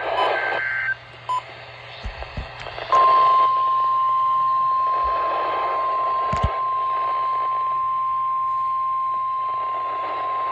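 NOAA Weather Radio emergency alert through a receiver. The tail of a SAME digital header burst, a short high warbling data squeal, is followed about three seconds in by the steady 1050 Hz warning alarm tone, held as one unbroken tone over radio static hiss. It signals an emergency alert, here a tornado watch.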